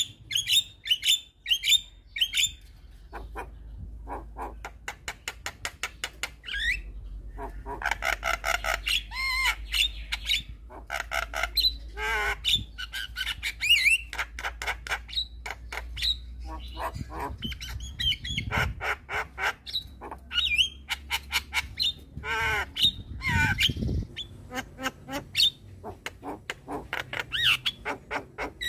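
Javan myna singing: fast runs of harsh clicking chatter mixed with squawks and short gliding whistles.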